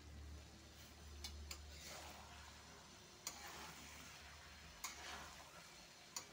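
Metal spatula stirring a thick vegetable and dry-fish curry in an aluminium kadai: faint scraping and shuffling of the food, with a few light metal-on-metal ticks against the pan.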